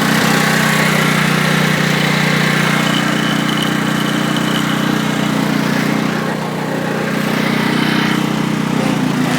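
Riding lawn mower's small engine running steadily while the mower is driven, easing slightly about two thirds of the way through.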